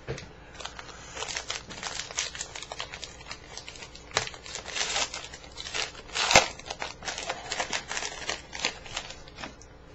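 Foil wrapper of a 2012 Panini Prizm baseball card pack being torn open and crinkled by hand: a steady run of crackles and small rips, with one sharp, loud crack about six seconds in.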